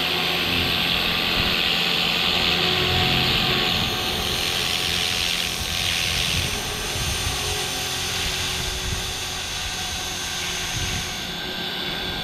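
Walkera V450D03 electric RC helicopter in flight: a steady rotor whine and hiss. It is loudest in the first few seconds, swells again about halfway through, and eases off near the end.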